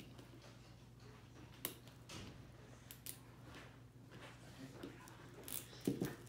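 Faint crinkling and peeling of the wrapper layers on an L.O.L. Surprise ball as it is unwrapped by hand, with scattered sharper crackles, the loudest about two seconds in and near the end.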